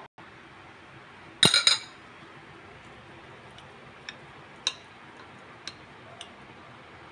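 A stainless steel potato masher clinking against a ceramic plate as it mashes cooked squash, a few light single taps spaced about half a second to a second apart. About a second and a half in there is a louder quick clatter of several clinks.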